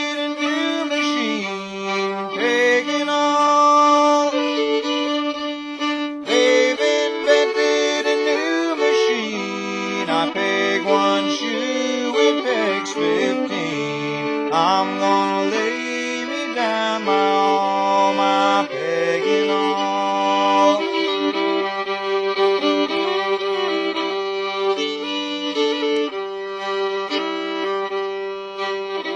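Fiddle-led old-time string band playing an instrumental stretch: bowed fiddle melody with slides between notes over a steady bass line.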